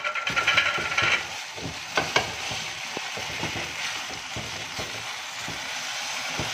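Silicone spatula stirring and scraping shredded chicken through a thick milk sauce in a non-stick frying pan, over a steady low sizzle from the pan. A brief high squeal sounds in the first second, and a couple of sharp taps come about two seconds in.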